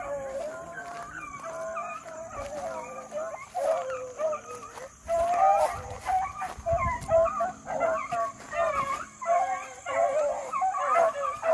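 A pack of beagles baying together on a scent trail, several hounds giving voice at once in overlapping long and short cries. The cries grow busier and louder about halfway through.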